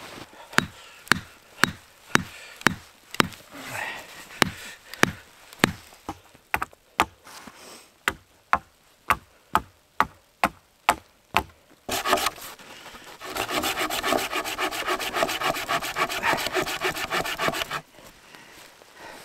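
A blade hacking at a wooden pole, sharp strokes at about two a second, then about six seconds of a saw cutting through wood in quick even strokes that stops suddenly near the end.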